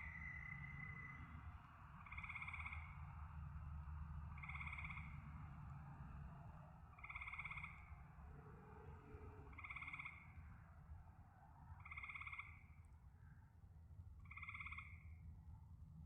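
A frog calling: a short, pulsed croak repeated evenly about every two and a half seconds, six times, over a faint steady background and a low rumble.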